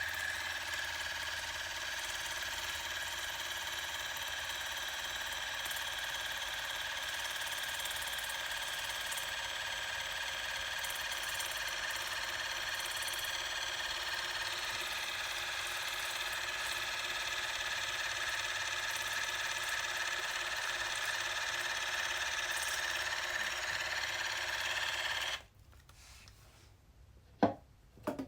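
Bitvae C1 electric water flosser's pump running with a steady buzzing whine while it sprays water, then switching off abruptly about 25 seconds in. Two sharp clicks follow near the end.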